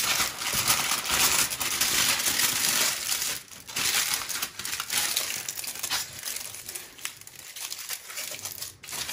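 Aluminium foil crinkling and crackling as hands roll a foil-wrapped log of pork sausage paste tight and twist its ends shut. The crinkling is busiest for the first three seconds or so, then lighter and more broken.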